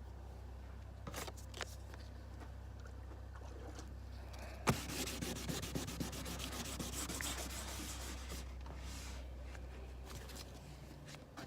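Gel coat being wet-sanded by hand with 600-grit sandpaper: rapid rubbing strokes start about five seconds in and fade off toward the end, after a couple of light knocks. A steady low hum runs underneath.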